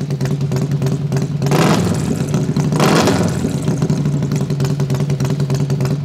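Harley-Davidson Milwaukee-Eight 131 cubic-inch V-twin running through its exhaust: a steady, pulsing idle with two short throttle blips, about a second and a half and about three seconds in.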